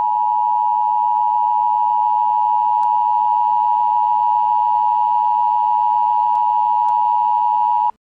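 Emergency Alert System attention signal: one steady high alert tone held for about eight seconds, then cutting off sharply. It announces that an emergency warning message is about to be read.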